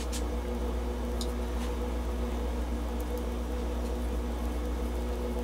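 Steady low machine hum in a workshop, with a few faint light clicks of a hand tap being turned back into a tapped hole in cast iron.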